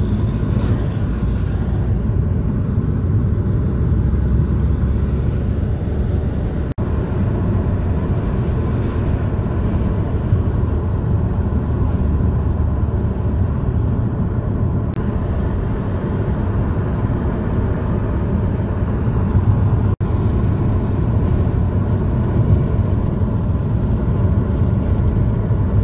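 Steady low rumble of a car driving, engine and tyre noise heard from inside the cabin. It cuts out for an instant twice.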